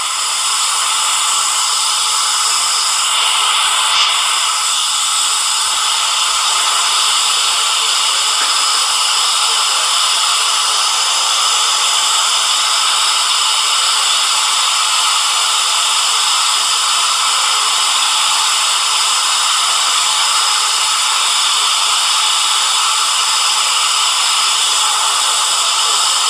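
Steady, loud static hiss with evenly spaced bands running through it, white noise put through the 4ormulator V32 voice effect. There is a small click about four seconds in.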